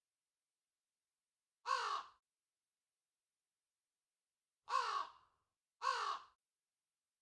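Crow cawing: three harsh caws of about half a second each, one about two seconds in and two close together near the end, with dead silence between them.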